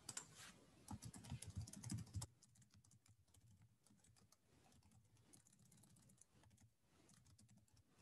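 Faint typing on a computer keyboard: a quick run of keystrokes for about the first two seconds, then lighter, scattered keystrokes.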